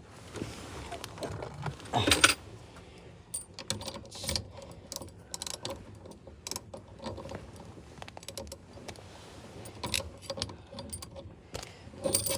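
Light, irregular metallic clicks and rattles of a bolt being run in, turning smoothly into threads freshly cleaned up with a tap after being cross-threaded.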